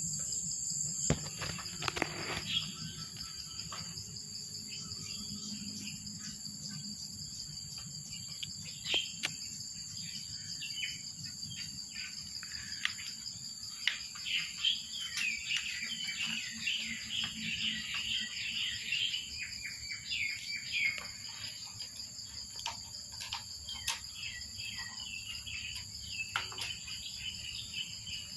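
Outdoor ambience of steady, high-pitched insect drone, with birds chirping in quick runs, busiest in the middle.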